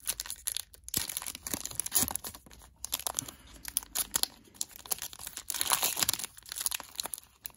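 A foil wrapper of a Panini Prizm basketball card pack being torn open and crinkled as the cards are pulled out, with many sharp crackles throughout.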